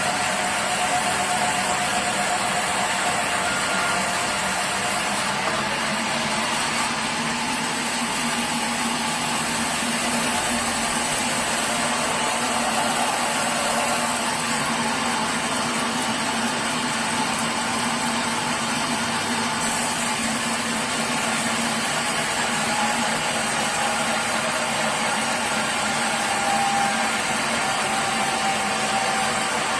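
Sawmill machinery running steadily: a continuous machine drone with a few faint humming tones that hold and drift slightly in pitch.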